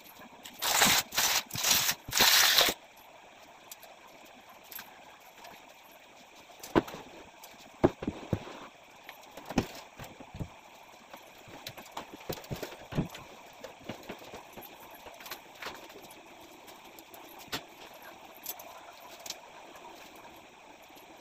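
Household handling noise: about four loud rustling or scraping bursts in the first three seconds, then scattered light clicks and knocks of objects being moved about the room.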